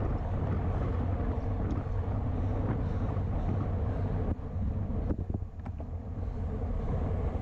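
Wind noise on the microphone of a bike-mounted action camera at road-racing speed, a steady low rumble mixed with road and tyre noise. A few short clicks sound between about five and six seconds in.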